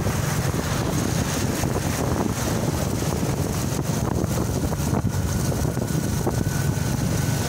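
Steady wind rush on the microphone from riding at speed, over the running of small motorcycle engines.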